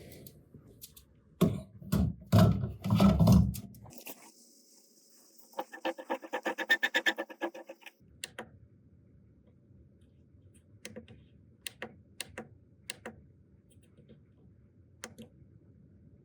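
Handling noises of a 3D-printer filament spool and its packaging: a few clicks and low knocks in the first seconds, then a quick run of pitched, rhythmic ticking lasting about two seconds. After that come only sparse light clicks.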